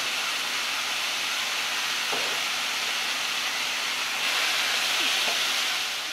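Diced deer heart sizzling in a hot cast-iron skillet: a steady frying hiss that grows louder for the last couple of seconds, then drops off.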